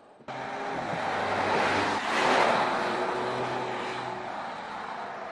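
Porsche Panamera driving by: engine note over tyre and road noise. It starts abruptly, is loudest about two seconds in, then fades slowly as the car moves away.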